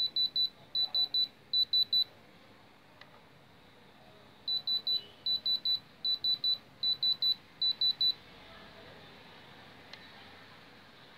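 Diamond Selector II gemstone tester beeping: quick triplets of short high-pitched beeps, about one triplet every three-quarters of a second. The beeping runs for about two seconds, stops, starts again a little later for about four seconds, then stops. The beeps are the tester's alert for a reading at the top of its thermal-conductivity scale, the strong signal the stone gives.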